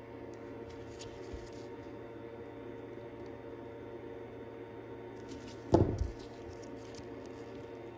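Faint light ticks of watchmaker's tweezers and screwdriver working a tiny screw into a movement, over a steady electrical hum, with one brief dull thump a little under six seconds in.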